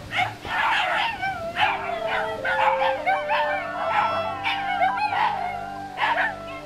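A pack of six Shiba Inus howling, yipping and whining over one another in short, rising and falling cries: an excited greeting of visitors arriving at the gate. Steady background music runs underneath from about a third of the way in.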